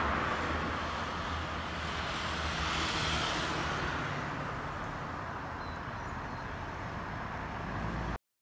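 Street traffic: a steady hum and rush of passing cars, swelling and easing slightly, that cuts off abruptly near the end.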